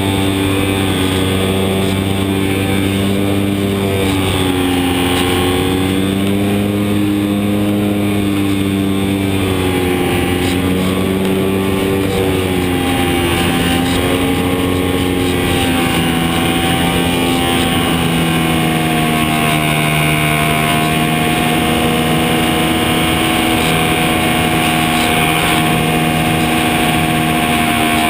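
Electric motor and propeller of a HobbyZone Super Cub model airplane running steadily in flight, heard close up from a camera mounted on the airframe; its pitch slowly wavers up and down.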